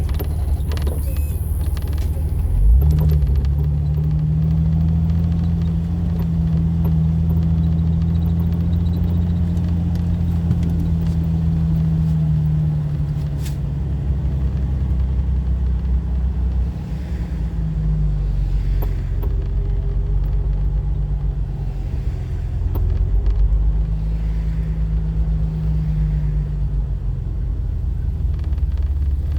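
A 2004 Jeep Wrangler driving, heard from inside: a steady low engine and road rumble, with the engine's hum fading and coming back a few times.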